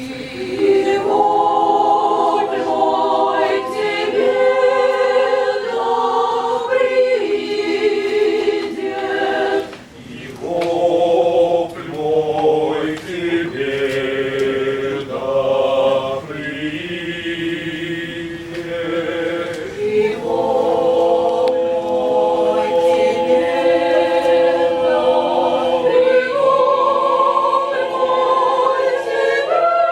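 Russian Orthodox church choir singing a cappella in several parts: held chords that move every second or so, with a brief break between phrases about a third of the way through.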